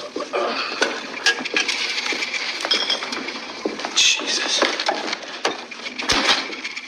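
Film sound effects of food and rubbish being rummaged through and scattered across a wooden floor: a quick string of clicks, clinks and knocks, with a louder burst about four seconds in and a heavy thud about six seconds in.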